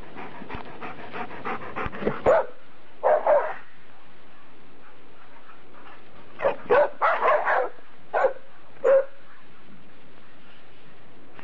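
Dog panting quickly, then several short barks in two clusters, one around the second to third second and one a few seconds later.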